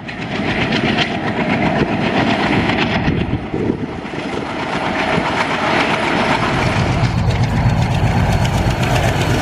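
Alco diesel locomotives running past with a train, engines and wheels on the rails loud and continuous. The sound changes abruptly about three seconds in, and a heavier low rumble comes in near seven seconds.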